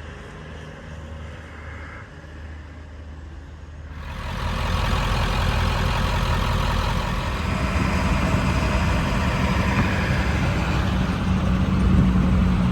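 A truck engine running steadily, first as a low hum, then much louder from about four seconds in.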